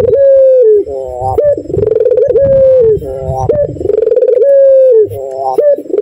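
Barbary dove (white 'puter') cooing its 'kiw kiw cukurukuk' song in an even run of repeated phrases, about one a second. Each phrase is a long level coo that drops at its end, then a short rolling rise.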